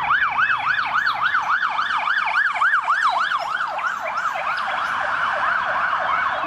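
Police car siren yelping, a fast up-and-down wail about four times a second, which grows fainter and blurs together in the second half.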